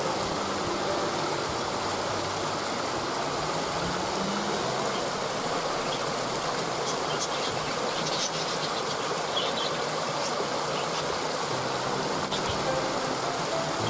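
Waterfall rushing steadily, with a few brief high bird chirps from about six to eleven seconds in.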